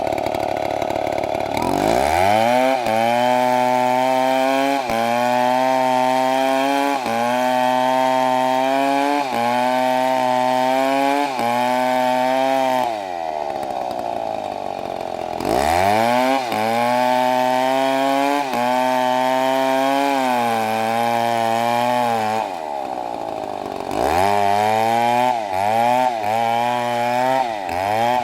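STIHL two-stroke chainsaw cutting wood. The engine pitch stays low under load as the chain bites, with small dips about every two seconds. It rises sharply to full revs about halfway through and again near the end as the load comes off, then bogs down into the cut again.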